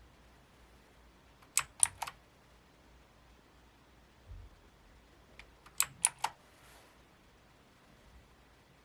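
Keys on a Micronics MANIC Z-K9 mechanical keyboard pressed in two short bursts of sharp clicks, three keystrokes and then four.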